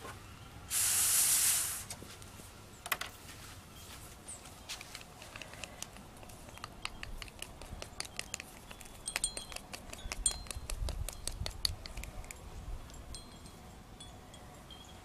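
A short puff of air hissing through a drinking straw onto wet acrylic paint, lasting about a second, then a long run of light clicks and taps from a wooden craft stick knocking against a small plastic cup.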